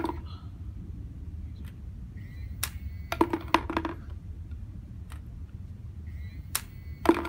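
Small robot ball launcher cycling twice: each time a short thin high whine, then a sharp click and a quick rattle of mechanical clicks and snaps, with a low steady hum underneath.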